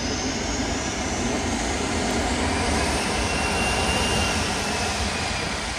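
Jet airliner's engines passing, a steady rushing noise that swells to its loudest about four seconds in, with a faint high whine that rises and then falls in pitch.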